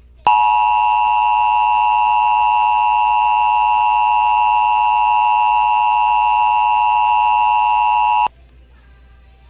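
Emergency Alert System two-tone attention signal, a steady dual-tone alarm that sounds for about eight seconds and then cuts off suddenly. It announces the tornado warning message that follows.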